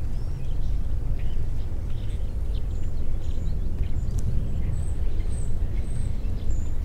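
Outdoor park ambience: a steady low rumble, with a few faint, high, short bird chirps, most of them about five to six and a half seconds in.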